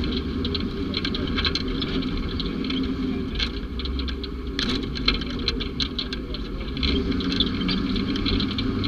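Utility vehicle's engine running steadily, with frequent clicking and rattling over it.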